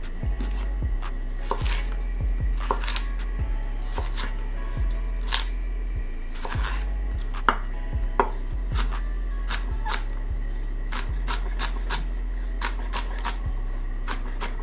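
Chef's knife dicing jalapeño on an end-grain wooden cutting board: uneven knocks of the blade on the wood, about two a second.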